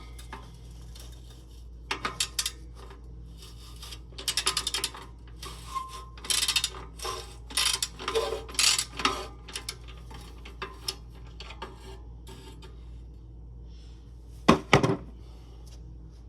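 Hand ratchet wrench clicking in several short bursts of rapid, even clicks, with metallic clinks of tools and parts and a couple of louder clanks near the end.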